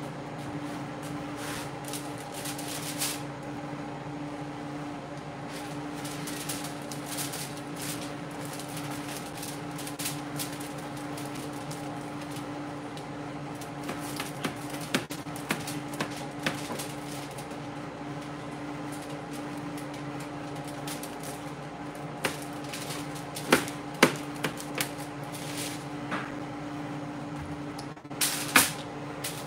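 A knife cutting through a rack of smoked pork ribs on a foil-lined metal tray, with scattered clicks and knocks of the blade against the foil and tray and a louder knock near the end. A steady hum with a few fixed tones runs underneath.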